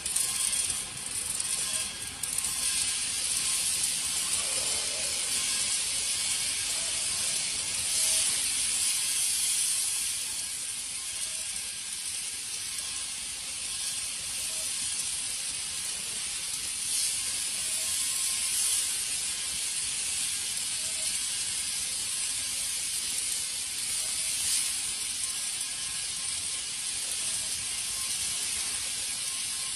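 MIG (gas metal arc) welding arc burning steadily, a continuous high crackling hiss.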